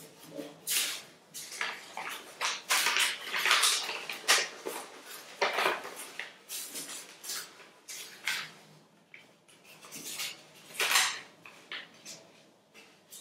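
Paper being folded and creased by hand: irregular crisp rustles and crackles, loudest about three to four seconds in and again near eleven seconds.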